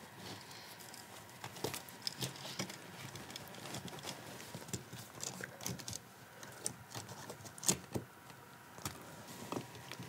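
Faint scattered clicks and knocks with light rubbing as a USB wall receptacle and its wires are pushed by hand into a metal electrical box.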